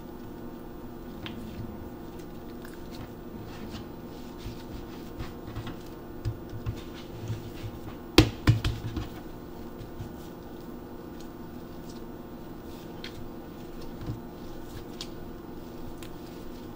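Hands working soft bread dough on a wooden cutting board: quiet handling, tapping and squishing noises, with a sharp knock and a few softer thumps about eight seconds in as a rounded dough ball is set down on the board. A steady low hum runs underneath.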